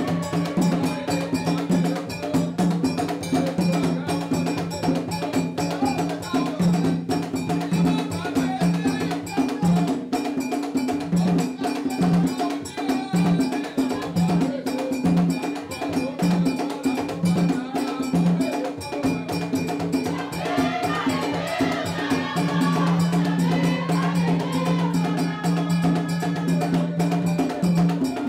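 Haitian Vodou ceremony music: dense, rapid percussion over a strong low tone that turns into pulses about once a second in the middle, with voices singing in the later part.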